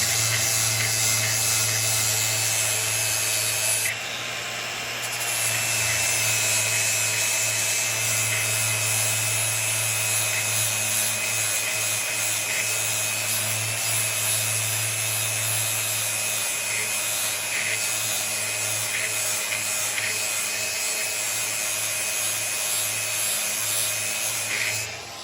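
Angle grinder running steadily with its pad grinding along the cutting edge of a steel lawn mower blade to sharpen it: a constant motor hum under a high grinding hiss. The hiss eases briefly about four seconds in, and the grinder cuts off at the very end.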